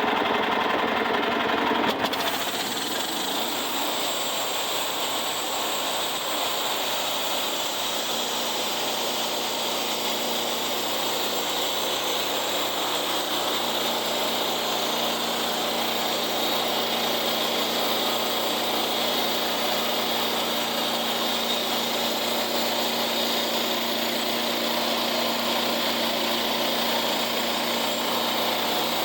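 Rebel sawmill's engine running steadily under load as its blade cuts along a log. The sound changes abruptly about two seconds in, then holds steady.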